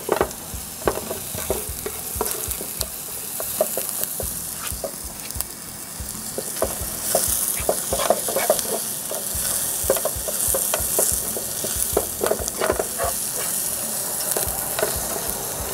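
Sliced onions, garlic and ginger sizzling in oil in a frying pan, stirred with a plastic slotted spatula that scrapes and taps against the pan at irregular moments.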